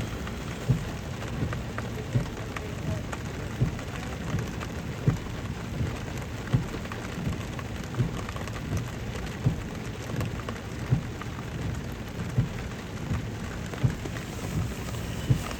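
Steady rain, with a short low thump repeating about every three-quarters of a second.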